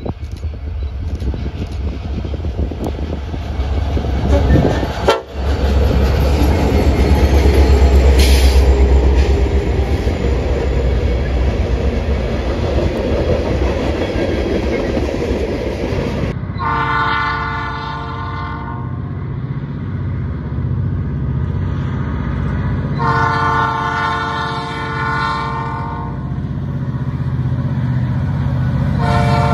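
Montana Rail Link diesel freight train rolling past close by: a deep engine rumble from the locomotives, then tank cars on the rails. A second MRL freight's lead diesel locomotive then approaches with its engines running and sounds its air horn in two long blasts, about halfway through and again a few seconds later, with a third starting at the very end.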